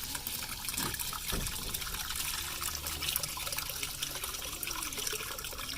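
Water running and trickling into a container as a rabbit water dish or bottle is filled.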